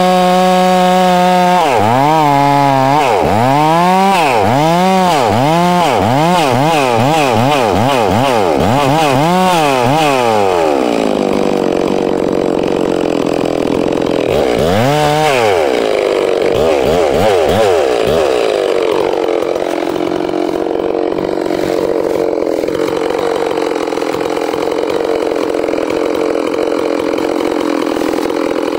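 Ported Farmertec G660 two-stroke chainsaw. It runs at full throttle, then its engine speed rises and falls about once a second for several seconds. About ten seconds in it drops to a lower steady idle, revs up once more around the middle, blips a few times, and then idles to the end.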